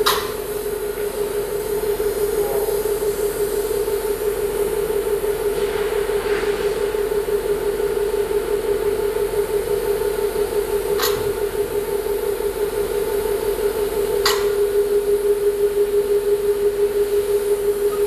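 Automatic band-saw blade sharpening machine running, its grinding wheel grinding the blade's teeth with a steady motor hum that pulses regularly, more strongly near the end, at about three pulses a second. There are a few sharp metallic clicks: one at the start, one about eleven seconds in and one about fourteen seconds in.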